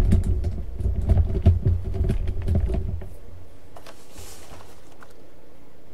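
Close handling noise from hands working on a foam RC airplane: rumbling bumps and scattered clicks for about three seconds, then fainter ticks and a brief soft rustle.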